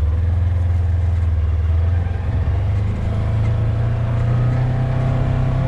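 Vehicle engine running steadily, its pitch rising about two to three seconds in as it picks up speed, then holding.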